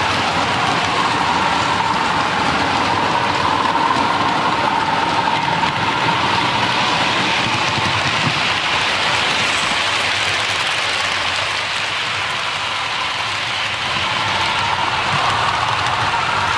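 Model trains running on the layout: a steady running hum of wheels on the rails and locomotive motors, dipping slightly in level about three quarters of the way through.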